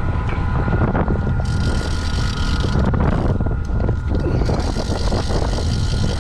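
Small power boat's engine running at trolling speed, with wind buffeting the microphone and two stretches of hiss, the first about a second and a half in and the second from about four and a half seconds in.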